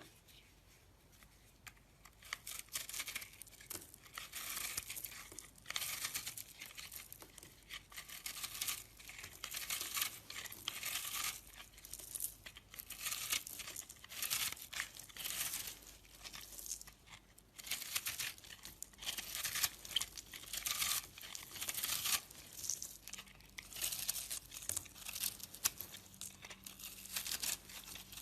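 Knife blade cutting and shaving a bar of soap in repeated crackly, scraping strokes that start about two seconds in.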